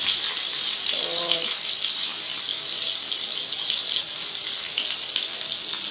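Pork belly frying in hot oil: a steady sizzle thick with small crackling pops of spitting fat, with one sharper pop near the end.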